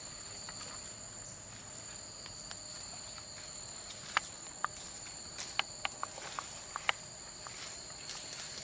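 Steady high-pitched drone of forest insects, with scattered sharp crackles from about four to seven seconds in as someone walks over dry leaves and twigs.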